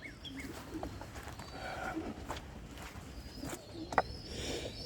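Pigeons cooing softly while feeding, with a few light, sharp taps scattered through.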